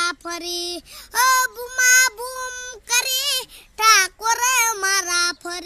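A young boy singing a Gujarati song solo and unaccompanied. He sings in phrases of long held notes with a wavering pitch, broken by short breaths.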